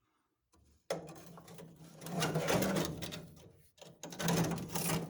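Power impact wrench running on a car's body-mount bolt in two bursts, the first about a second in and the second near the end, with a steady motor hum under rapid rattling.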